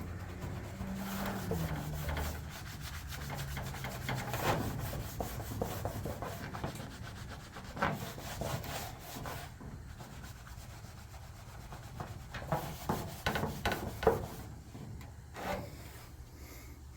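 Hand scrubbing or sanding on an aluminium race-car body panel to clean off tire burn marks, in uneven strokes with a run of harder strokes in the second half.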